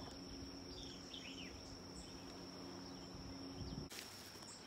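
Insects trilling steadily at a high pitch, with a few short descending bird chirps about a second in.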